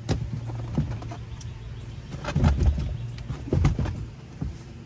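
Knocks and thumps as a boat's captain chair and its mount are shifted and set in position, several in a row, loudest a little past halfway, over a steady low hum.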